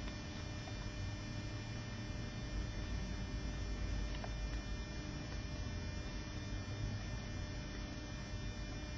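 Steady low electrical hum with background hiss, a faint tick or two.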